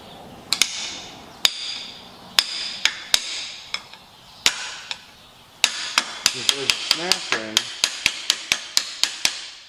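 A hammer strikes a steel striking screwdriver set against the head gland of a John Deere hydraulic loader cylinder, driving the gland inward to expose the retaining-ring notch. Sharp metallic taps with a bright ring come singly, about a second apart, then quicken to about four taps a second from around six seconds in.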